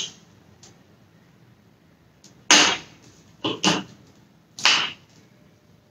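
A small tool scraping and prying at the plastic stopper in the neck of a plastic bottle, working it loose. Four short scrapes come in the second half, two of them in quick succession.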